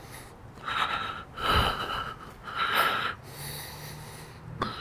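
A man breathing hard with effort, three heavy puffing breaths about a second apart, while straining to lift a heavy machine upright.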